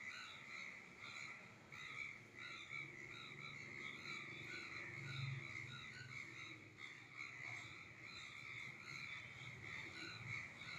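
A flock of birds calling continuously: many short chirps overlapping into a steady chorus, with a faint low rumble underneath.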